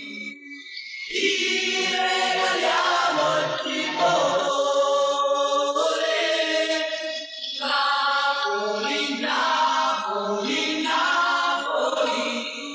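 A choir singing long held notes in phrases of a few seconds, part of a song with backing music.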